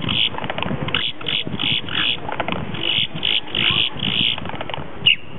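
Male boat-tailed grackle calling in its display: runs of harsh, chattering notes, about three a second, broken by short pauses, with a single sharp note near the end that is the loudest sound.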